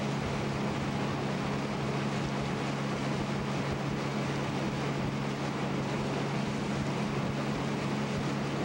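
Small aluminium boat's outboard motor running at a steady cruising speed, a constant drone with wind and rushing water over it.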